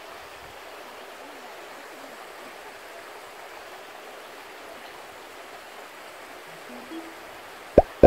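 Shallow stream running over rocks: a steady, even rush of water. Near the end, background music starts with a loud plucked note.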